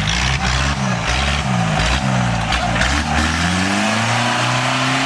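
Off-road competition vehicle's engine revving hard in quick rises and falls, then pulling in one longer, steadily climbing rev near the end.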